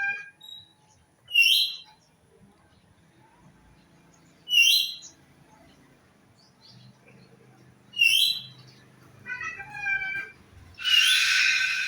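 Birds calling: a short, sharp high call repeated three times about three seconds apart, a few thinner chirps, then a loud harsh call near the end.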